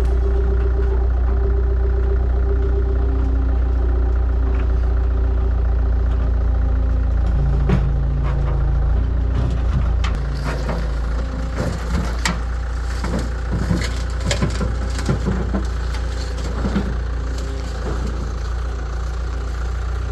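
A heavy diesel engine idles steadily. From about halfway through, sharp metallic clanks and knocks come at irregular intervals over the idle.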